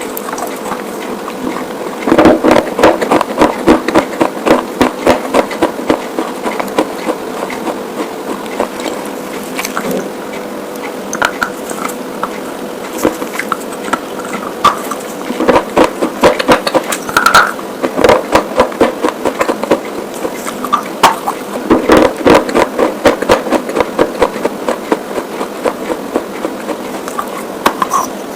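Close-miked crunching of white slate pieces being bitten and chewed: dense crackly snaps in bursts, heaviest a couple of seconds in and again past the middle, over a faint steady hum.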